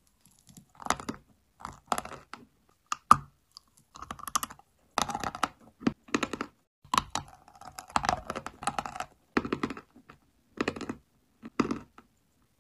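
Dry chalk being bitten and chewed: a run of sharp, irregular crunches with short pauses between.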